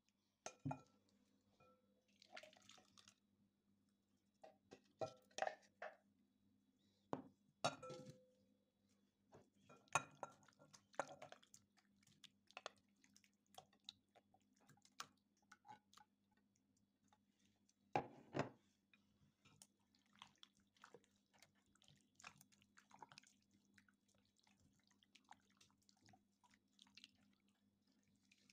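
Irregular clinks and knocks of glass and plastic kitchenware, with wet squelches of raw chicken pieces and marinade being tipped into and stirred in a glass bowl.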